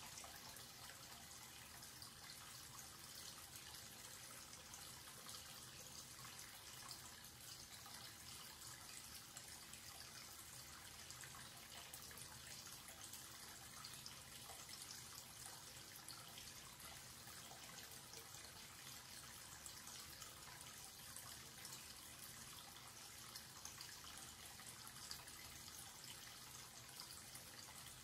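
Quiet, steady water from a wall-mounted tap pouring into water pooled in a washbasin: an even splashing hiss that doesn't change.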